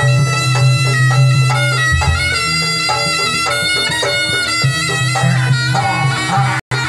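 Live jaranan music for a barongan dance: a shrill, nasal slompret (East Javanese double-reed shawm) plays a stepping melody over a steady low drone, with drum beats underneath. The sound cuts out for an instant near the end.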